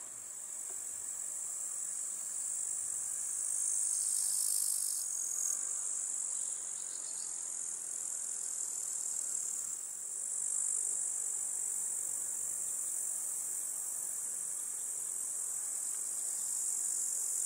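Meadow insects stridulating: a continuous high-pitched chirring that swells slightly now and then.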